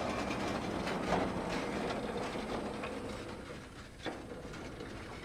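Portable bandsaw mill running, a steady mechanical rolling noise with a faint hum, fading gradually over the last couple of seconds; a single sharp knock sounds about four seconds in.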